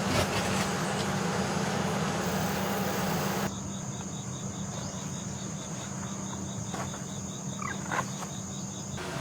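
A steady hiss cuts off abruptly about three and a half seconds in, giving way to a low steady hum and an evenly pulsing high chirping of insects.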